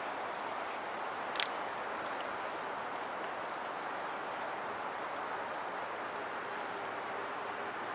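Steady wash of water moving against a small fishing boat, an even hiss, with one sharp click about a second and a half in.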